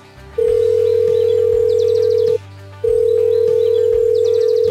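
Two long, steady electronic beep tones, each about two seconds, separated by a short gap, over light background music.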